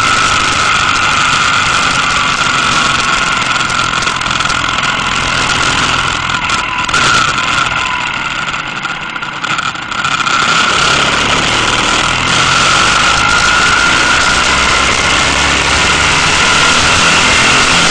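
Motorcycle engine running under way with wind rushing over the microphone. The engine eases off about eight seconds in and pulls again from about ten seconds.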